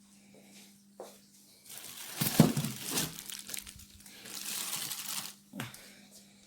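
Packaging being crinkled and rustled in two spells as packed parts are handled, with a short knock about a second in and another near the end.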